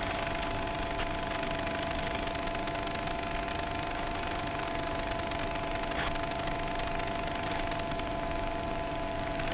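Steady electrical hum and whine with a constant mid-pitched tone over hiss, unchanging throughout.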